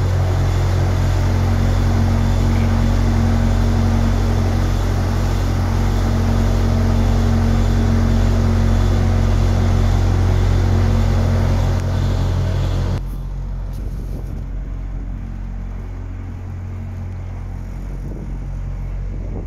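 A steady engine running at idle, an even low hum, that cuts off abruptly about two-thirds of the way through. Softer wind noise on the microphone follows.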